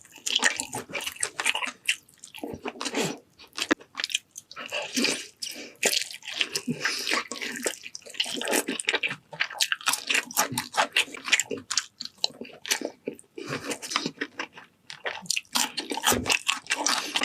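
A person eating: big bites and chewing, with crunching and wet mouth sounds in quick, irregular runs broken by short pauses.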